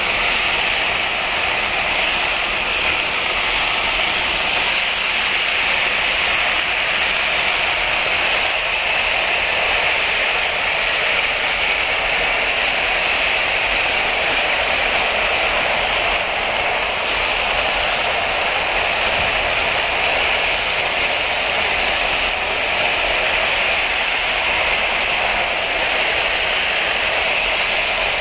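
Sliced bitter gourd, onion and chillies sizzling steadily in hot oil in a pan, a continuous loud hiss, with a wooden spatula stirring and scraping through them.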